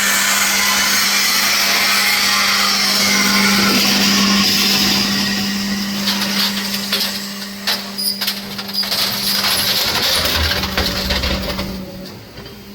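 Hydraulic scrap baler running: a steady pump hum under a loud hiss, then iron scrap clanking and knocking as it is compressed, with a low thud about ten seconds in.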